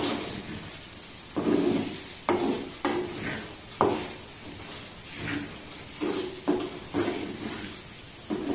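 A wooden spatula stirs a thick, oily dry-prawn pickle mixture in an earthenware clay pot, scraping against the pot in quick, irregular strokes about once a second. A light sizzle of hot oil sounds between the strokes.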